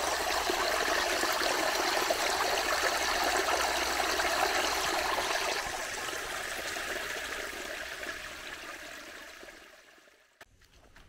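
Forest stream running over a small weir: a steady rush of water that fades away from about six seconds in until it is almost gone near the end, where two faint clicks are heard.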